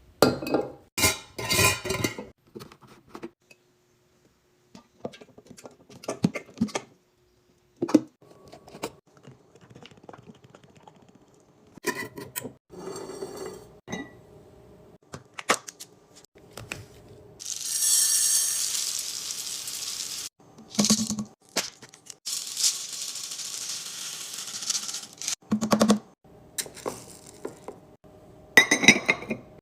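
Containers and food packaging being handled and set down in a fridge: scattered clinks and knocks, with two longer stretches of steady hiss after the midpoint.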